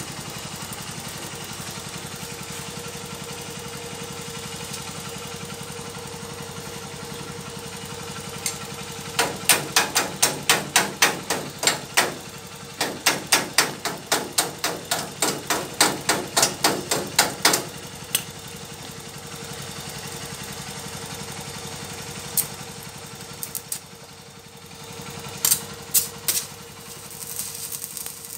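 Hammer striking the steel tube joint of a motorcycle sidecar frame, typical of chipping slag off a fresh stick weld. It comes in two quick runs of sharp metallic knocks at about three a second, with a few more blows near the end, over a steady machine hum.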